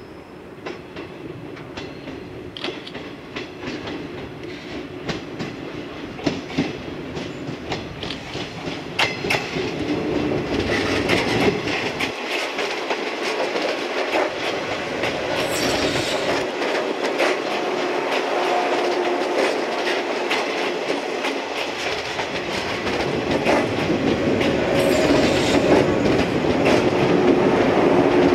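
Six-car electric train of two coupled JR West 115-series sets approaching and rolling past, its wheels clicking over the rail joints. The sound grows steadily louder as the train draws near and passes close by.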